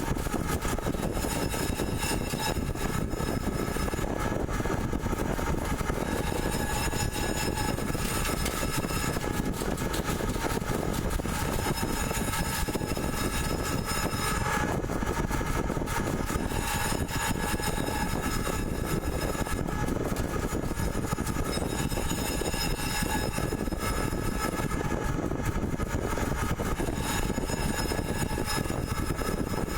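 CNC pipe threading machine running steadily, a constant rushing mechanical noise with several faint steady high-pitched tones over it.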